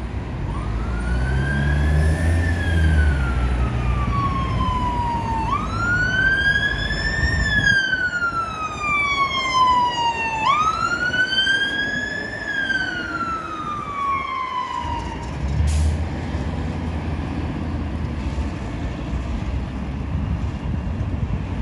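Fire engine siren on its wail, a slow rise and longer fall repeated three times, which stops about 15 seconds in. Under it runs the low rumble of the engine and road traffic, louder again after the siren cuts off.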